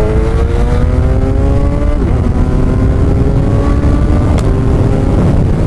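Kawasaki Ninja 1000 SX's inline-four engine, fitted with a Black Widow bend-pipe exhaust, pulling up through the gears under way. The pitch climbs steadily, drops at an upshift about two seconds in, climbs again, and drops at another upshift near the end.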